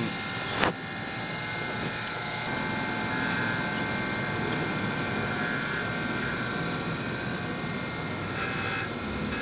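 Chevalier surface grinder running steadily, its wheel spindle and motor giving an even whine with several fixed tones while the table traverses under the wheel for a grinding pass across the bottom of an electromagnetic chuck. A short, higher hiss comes near the end.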